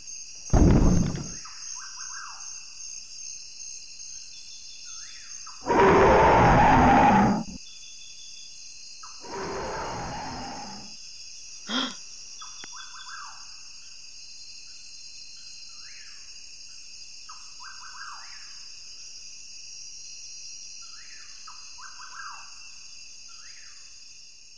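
Rainforest sound-effect ambience, a steady high hiss with repeated bird chirps, broken by loud Tyrannosaurus rex roars: a sudden thud-like burst about half a second in, a long loud roar around six seconds in, a shorter fainter one near ten seconds, and a sharp crack near twelve seconds.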